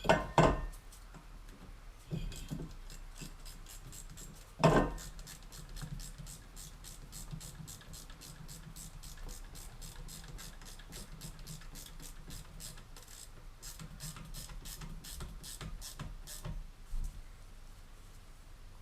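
Two heavy knocks, then a long, quick, even run of sharp clicks, about four or five a second, that stops near the end: hand tools working on a car.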